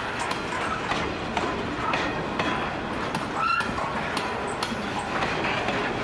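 Grain hopper wagons of a freight train rolling past, a steady rumble of steel wheels on rail with irregular clicks and knocks over the rail joints. A few brief high wheel squeaks sound through it, the clearest about three and a half seconds in.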